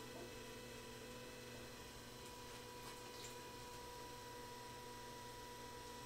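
Faint, steady electric hum of a potter's wheel motor running while a large ball of stiff porcelain is coned up and centered by hand.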